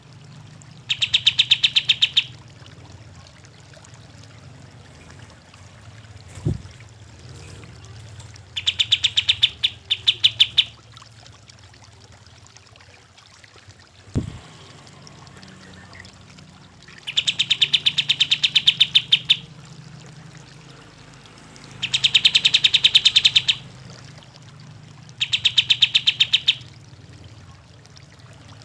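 Kapas tembak bulbul singing in five bursts, each one to two seconds of rapid, evenly repeated sharp notes, with a couple of dull knocks in the pauses.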